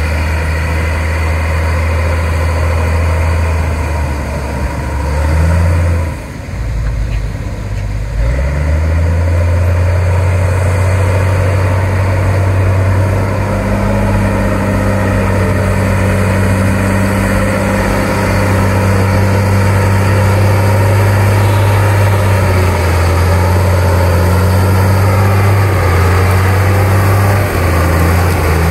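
Shantui DH17C2 bulldozer's diesel engine working under load as it pushes mud and soil: a deep, steady drone that drops back briefly about six to eight seconds in, then picks up again and holds.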